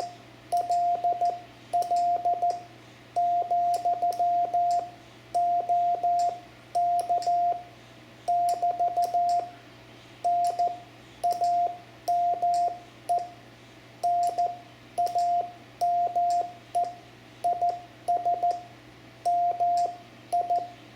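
Morse code (CW) on a single steady tone, keyed on and off in dots and dashes with short gaps between characters, and faint clicks at each keying edge. It is spelling out the station's location (QTH) in a basic amateur radio QSO.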